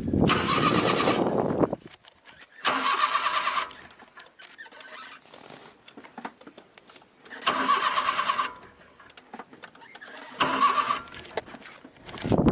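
A car's starter motor cranking the engine in four short bursts of about a second each, with pauses between them, and the engine not catching: a car that won't start. Faint clicks come in the gaps between the bursts.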